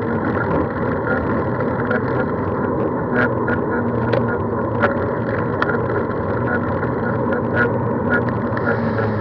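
Steady rumble of a moving vehicle with wind noise on the microphone, broken by scattered sharp clicks and rattles.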